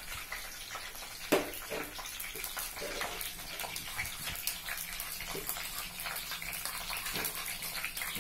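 Green chillies and whole spices (cinnamon, cloves) sizzling and crackling in hot oil in a kadai while being tempered, with one sharp knock about a second in.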